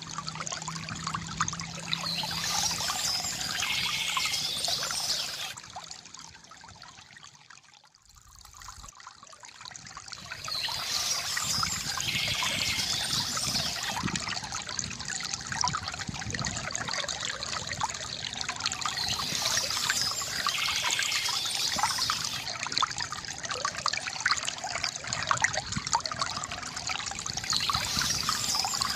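Water trickling and gurgling from a bamboo fountain in a steady splashing flow. It fades down about six seconds in and comes back a few seconds later.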